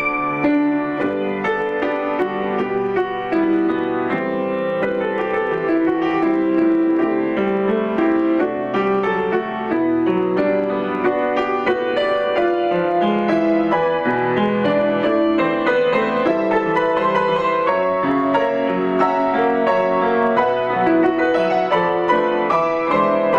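Instrumental music played on a keyboard with a piano sound: a melody over held chords, steady in loudness.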